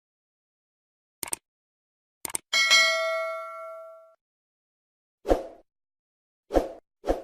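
Subscribe-button animation sound effects: a sharp click, then a quick double click followed by a notification bell ding that rings out and fades over about a second and a half. Near the end come three short pops.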